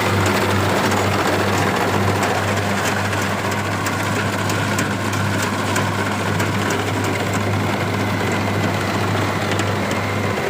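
Kubota DC-60 rice combine harvester's diesel engine running steadily, a constant low hum under the rattle and whirr of its machinery.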